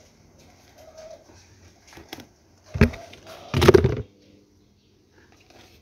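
Handling noise from the plant's soil root ball and black plastic nursery bag: a sharp knock just under three seconds in, then a longer rustling thump about half a second later. A dove coos faintly in the background.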